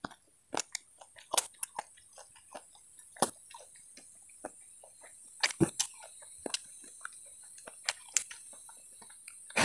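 Close-up eating of corn on the cob: scattered soft crunches and clicks as kernels are picked off the cob and chewed, with a faint steady high hiss behind.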